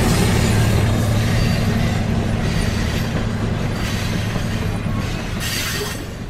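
A passing train's steady running noise on the rails, fading gradually over the last second or so.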